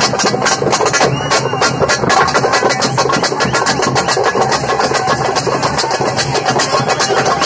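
Loud music driven by fast, steady drumbeats, several strokes a second.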